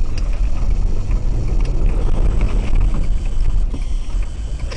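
Car interior road and engine noise picked up by a dashcam while driving on a snow-covered road: a steady low rumble with light scattered ticks.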